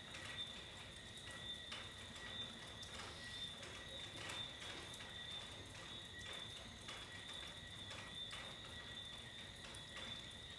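Faint rain dripping and tapping in irregular drops during a tropical storm, over a steady high-pitched drone.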